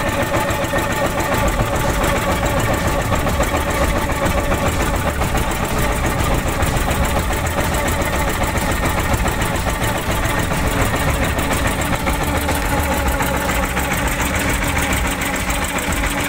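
Wooden fishing boat's inboard engine running steadily with a fast, even knocking beat.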